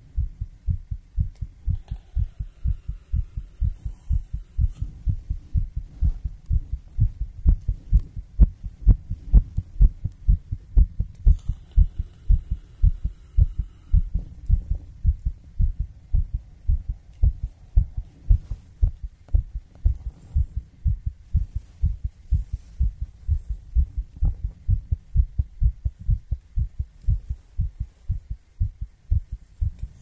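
A heartbeat: steady, repeating low lub-dub thumps. A faint high hiss comes in twice briefly.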